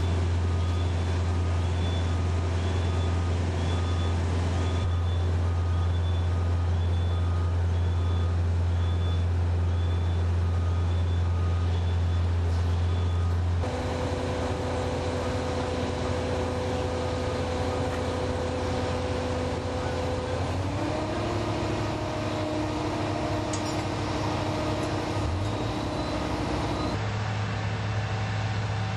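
Diesel engine of heavy construction equipment running steadily, with a motion alarm beeping evenly, about one and a half times a second, until about twelve seconds in. The engine sound then changes to a steadier hum with a whine whose pitch steps up twice.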